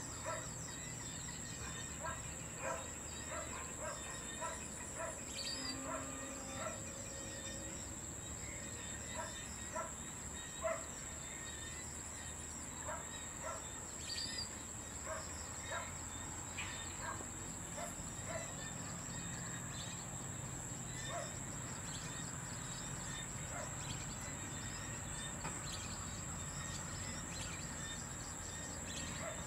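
Steady high-pitched insect drone, with scattered short low call notes repeating irregularly and a couple of brief high whistled bird notes.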